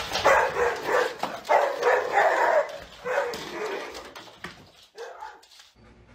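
A dog making a run of drawn-out, whining barks over the first three seconds, then fainter calls that stop about two-thirds of the way through.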